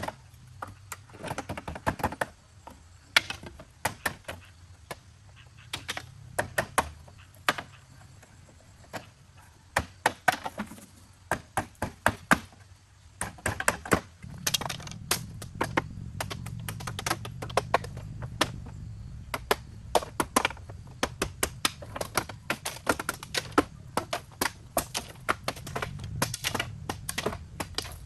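Repeated sharp knocks and strikes in quick, irregular runs, several to a second at times, with short pauses between runs. A steady low hum comes in about halfway through.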